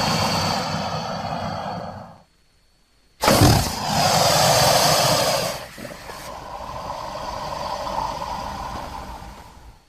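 Designed creature call for the Eryops, mixed from crocodilian and wild boar recordings: one call fades out, and after a second's pause a new loud call starts suddenly about three seconds in, then trails off slowly over several seconds.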